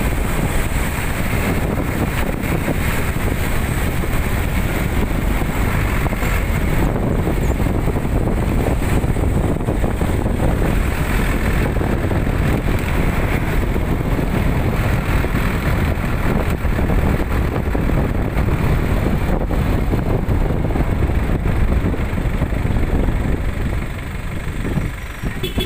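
Dump truck driving along a road, heard from its open cargo bed: a steady, loud mix of engine and road noise. It drops a little near the end as the truck comes to a stop.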